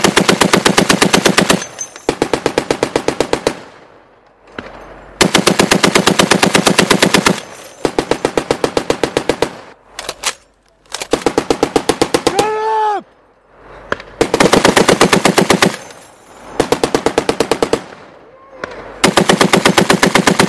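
Browning M2 .50-calibre heavy machine gun firing about eight bursts of one to two seconds each, with short pauses between; within each burst the shots come evenly at roughly nine a second.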